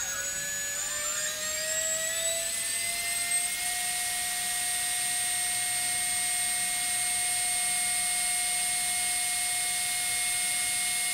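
T-Motor F40 Pro II 2600 KV brushless drone motor spinning with no propeller on a test stand. Its high whine rises in pitch over the first few seconds as the throttle ramps up, then holds steady at full throttle for a KV (rpm-per-volt) reading.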